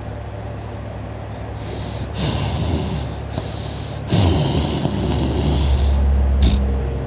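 A sleeping person snoring: two loud, rough snoring breaths, the second, about four seconds in, the louder, with a deep snorting rattle.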